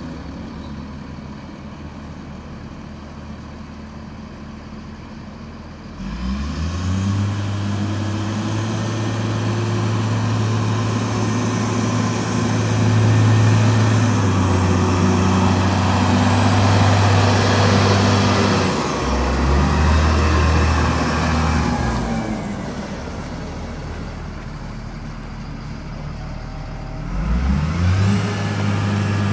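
Caterpillar 938G wheel loader's six-cylinder diesel engine under way: running low at first, revving up about six seconds in and holding high for a long stretch, easing off for several seconds, then revving up again near the end.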